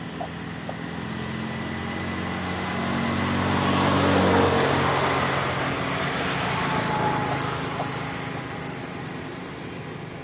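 A motor vehicle passing by: its engine grows louder to a peak about four seconds in, then fades away.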